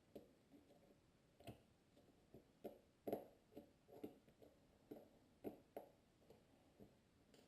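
Faint, irregular small clicks and ticks, about two a second, from a small Phillips screwdriver turning out the tiny screws of a MacBook's bottom case.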